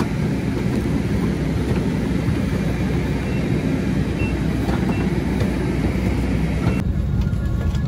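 Loud, steady noise of jet aircraft running close by, heard at the foot of the plane while boarding. The sound is heavy in the low end, with a faint thin high tone now and then; the upper part of the sound changes abruptly near the end.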